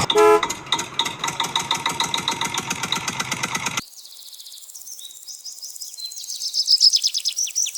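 A short vehicle horn honk, then a fast, even mechanical rattle that cuts off abruptly about four seconds in. After a brief lull, rapid high bird chirps repeat over and over.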